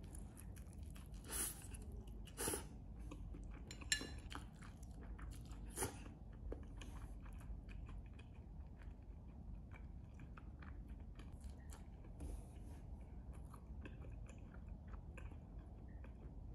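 A person chewing and crunching food close to the microphone, with a few louder sharp clicks in the first six seconds.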